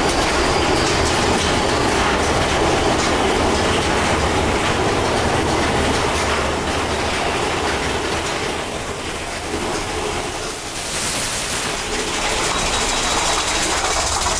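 Big Thunder Mountain Railroad mine-train roller coaster heard from aboard: wheels rumbling and clattering along the track, easing off a little about ten seconds in before picking up again.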